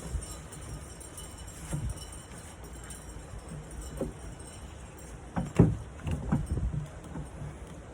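Scattered knocks and bumps from a sanded wooden nightstand being handled and wiped down, the loudest a cluster about five and a half seconds in.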